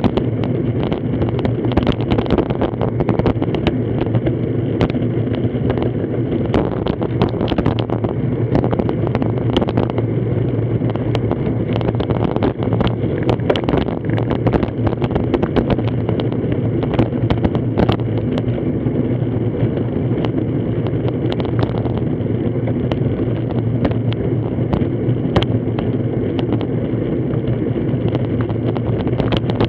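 Wind rushing over the microphone of a handlebar-mounted camera on a road bike riding at about 25 km/h, with a steady low road rumble and frequent small knocks as the bike jolts over the asphalt.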